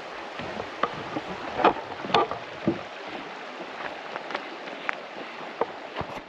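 Footsteps on a stony path: scattered, irregular light knocks and scuffs over a steady rushing background noise.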